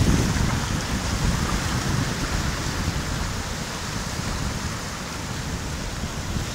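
Ocean surf washing in over and between flat, seaweed-covered rocks: a steady hiss of foaming water. A low, uneven rumble under it is strongest in the first second or so.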